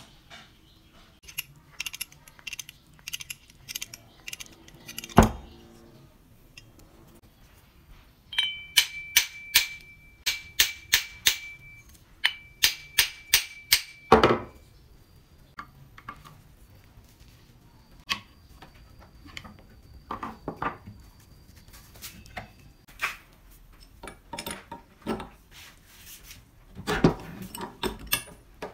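Hammer tapping the end of a steel drill press spindle to drive it through its bearing. Through the middle comes a steady run of ringing metal strikes, about two a second, among scattered clinks and knocks of tools. Near the end there is a quick cluster of metallic clicks as a socket wrench works a bolt in the cast drill press head.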